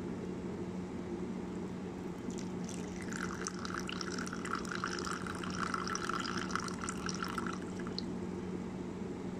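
Coffee pouring in a thin stream into a ceramic cup, a light trickling and splashing that starts about two seconds in and runs for about five seconds. Under it, a steady low hum.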